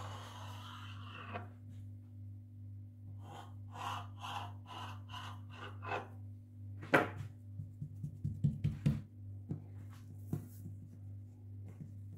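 Kitchen handling sounds on a floured worktop while rolled dough is divided: a run of about eight short scraping strokes, then a sharp knock and a quick cluster of light taps. A steady low electrical hum runs underneath.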